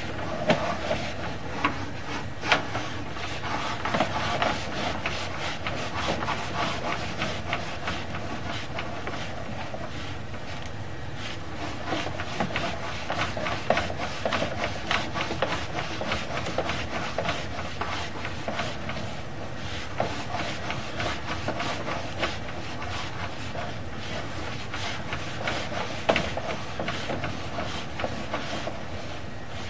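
A sewer inspection camera on its push cable being fed down a sewer line: continuous rubbing and scraping with many small clicks and knocks, and a few louder knocks.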